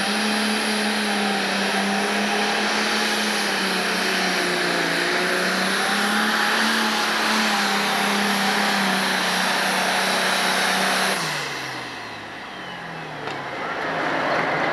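International 1066 pro stock pulling tractor's turbocharged diesel engine running flat out under load, pulling the sled with a steady, loud drone. About eleven seconds in the engine is let off at the end of the pull and its pitch falls away.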